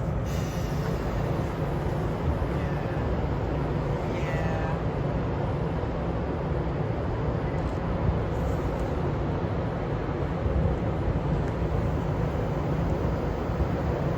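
Train running with a steady low rumble, a faint brief high-pitched sound about three to five seconds in.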